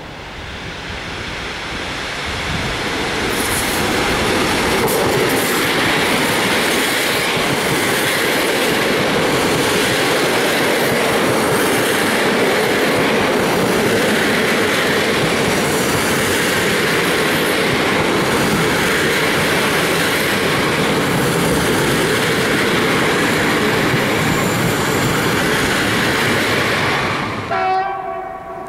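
PKP EP07 electric locomotive and its train of passenger coaches passing along the platform at speed: the steady rolling of steel wheels on rail, building over the first four seconds and holding loud, then ending abruptly near the end.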